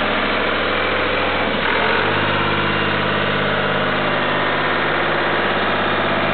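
Ford 545D tractor loader's engine running steadily at low speed, its pitch stepping up slightly about two seconds in.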